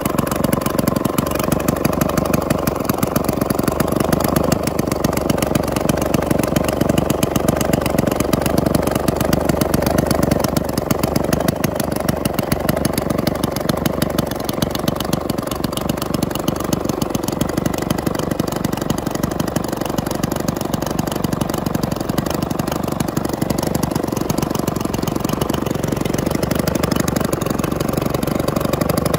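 Twin-cylinder engine built from two Maytag Model 92 two-stroke singles, running steadily with a fast, even firing beat.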